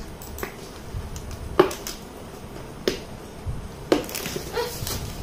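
Handling noise from a cardboard gift box and small toy pieces: a few short clicks and taps, roughly a second apart, over faint rustling.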